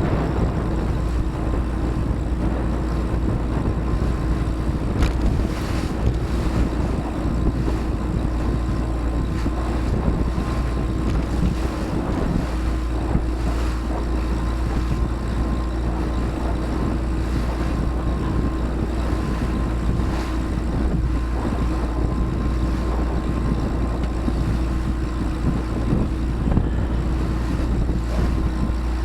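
Motorboat engine running steadily at a constant pitch, with wind buffeting the microphone.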